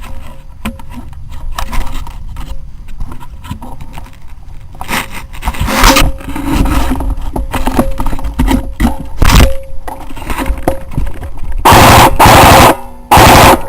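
Scraping and knocking handling noise with scattered snaps, then near the end a loud, distorted burst of airsoft gun fire close to the microphone, followed by another.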